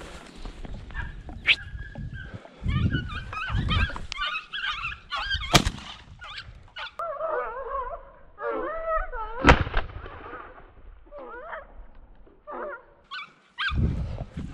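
Podenco hounds yelping in short, wavering, high-pitched cries, typical of the dogs giving tongue on a rabbit's scent. Mixed with footsteps on dry ground and a couple of sharp knocks.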